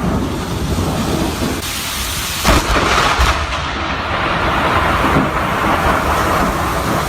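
Violent storm: loud, steady heavy rain with a low rumble beneath it, growing louder about two and a half seconds in.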